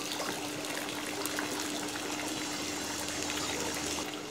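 Water dripping and splashing into a pool from a steel diving cage being hoisted out of it, over a steady hum.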